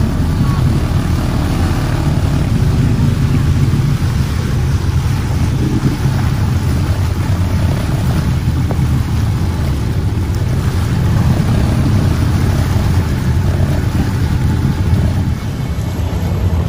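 Jet ski engine running steadily at cruising speed, a low drone, with wind buffeting the microphone and water rushing past.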